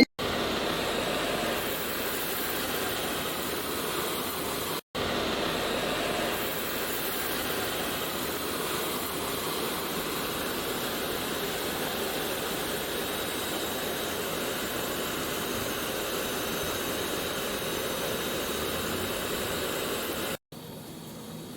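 Continuous bubble washing machine running: a steady rushing noise of its air blower and bubbling, churning wash water. It drops out for a moment about five seconds in, and near the end gives way to a quieter sound.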